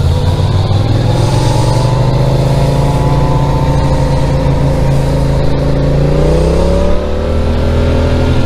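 Motorcycle engine running as the bikes ride off, its pitch rising slowly as it accelerates and easing back near the end.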